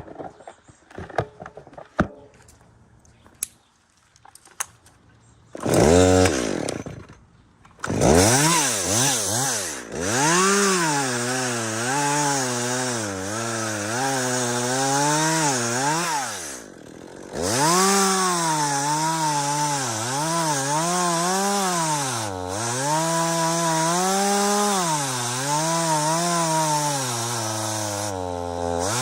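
A few clicks and knocks, then a two-stroke chainsaw starts about six seconds in and runs loudly, revving up and down over and over as it cuts wood. There is a brief drop in revs near the middle.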